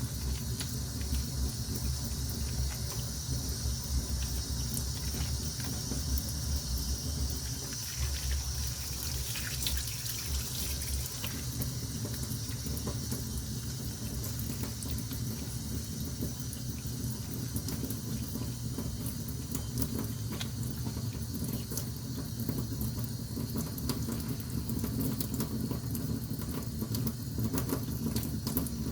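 Steady water sound, running or sloshing, with many small clicks throughout.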